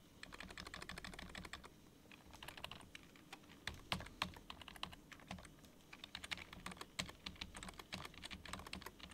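Typing on a computer keyboard: an irregular run of key clicks with short pauses, as lines of code are commented out.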